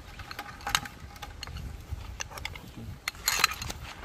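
Metal tongs and a ladle clinking and scraping against a metal cooking pot and the shells of crabs in water: a run of sharp clicks, with a louder cluster about three seconds in.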